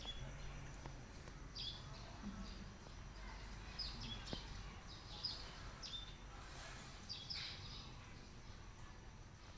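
Small birds calling in the background: several short, high calls scattered through, over a low steady hum.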